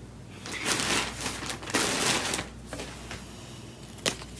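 Shopping bag rustling in two bursts as a knitted sweater is pulled out of it, followed by a single short click near the end.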